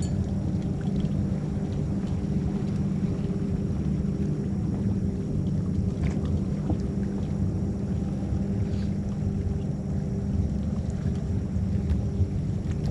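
Steady low rumble with a faint, even hum over it and a few small ticks.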